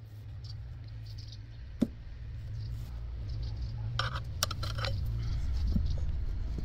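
Light metallic clinks of hand tools, with a single sharp knock about two seconds in and a quick cluster of clinks around four seconds in, over a steady low rumble.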